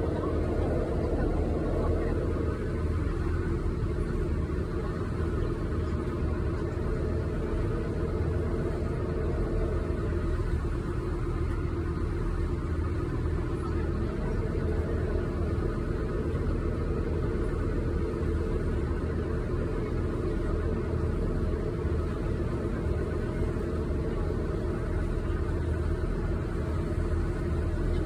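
A river ferry's engine running steadily while the boat is underway: a constant low rumble.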